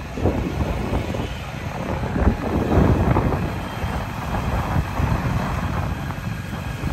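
A vehicle driving along, with the engine and road noise of the ride heard from on board.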